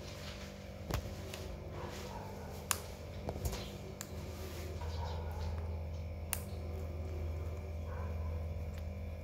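Rose-ringed parakeet biting and chewing a piece of guava, a few scattered sharp clicks of its beak on the fruit, over a steady low hum.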